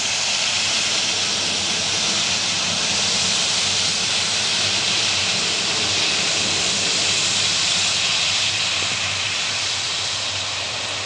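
Airliner jet engines running steadily at low taxi power: an even hiss with a low hum underneath, easing slightly near the end.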